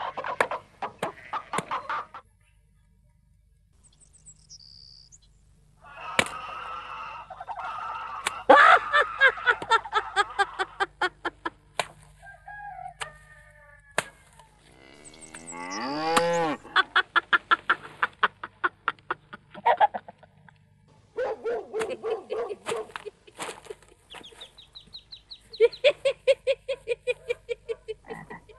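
Hen-like clucking and cackling in quick runs of pulses, with one long call that rises and falls about halfway through.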